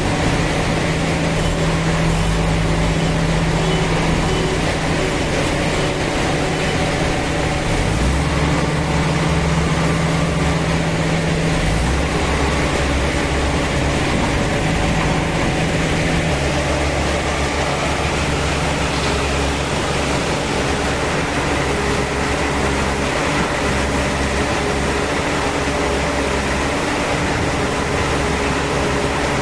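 JCB 3DX backhoe loader's Kirloskar diesel engine running steadily under work. Its low tone steps to a new pitch a few times as the load or throttle changes.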